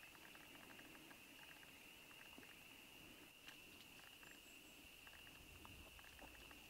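Near silence: faint outdoor ambience with a steady high thin tone and scattered soft ticks. The bittern is not calling.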